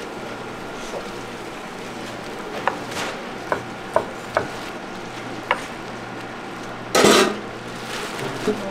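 Kitchen knife slicing boiled meat on a wooden cutting board: sharp knocks at uneven intervals as the blade meets the board, over a steady low hum. About seven seconds in comes a louder, brief rush of noise.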